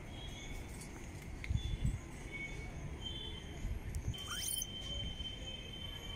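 Forest ambience: a few short high calls, a quick rising whistle about four seconds in, and a steady high tone held for about two seconds after it, over a low rumble on the microphone.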